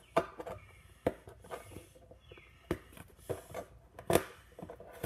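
A package being worked open by hand: rustling and scraping of the packaging, with three sharp knocks about a second and a half apart.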